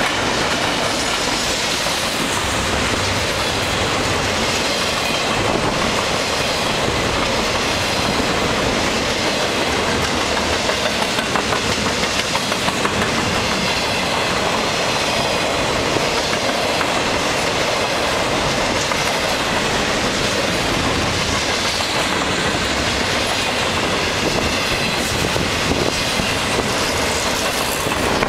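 Double-stack container cars of a freight train rolling by: steel wheels rumbling and clacking over the rail joints in a steady, continuous din. A brief run of quick, regular clacks comes about ten seconds in.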